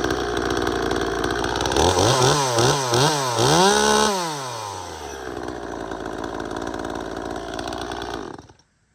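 Two-stroke top-handle chainsaw running, revved up and down about four times, then settling to idle and shutting off abruptly near the end.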